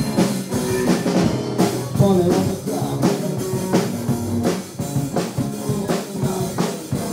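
Rock band playing: a drum kit keeps a steady beat of about two strokes a second under electric guitar and a singing voice.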